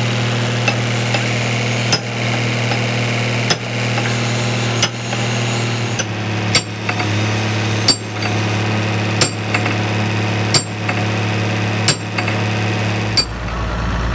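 Hammer blows on steel, a sharp metallic strike roughly every second and a half, about ten in all, during work on an excavator's boom pin. Under them an engine runs steadily, its note dropping near the end.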